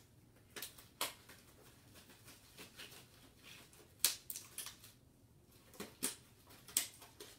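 White gloves being pulled on and worked onto the hands: soft rustling with scattered sharp snaps and clicks, the loudest about a second in, about four seconds in and near the end.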